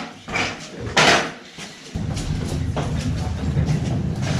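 A few knocks and clatters as household items are carried and set down, the loudest about a second in. About two seconds in, a steady low hum starts abruptly and keeps going.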